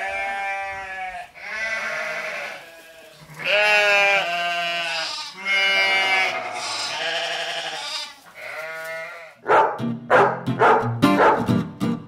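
Sheep bleating: about five long, wavering calls one after another. About three quarters of the way through, strummed acoustic guitar music starts.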